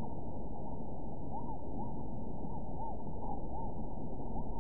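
Mallard ducklings peeping: a string of short rising-and-falling calls, about two a second, over a steady background noise.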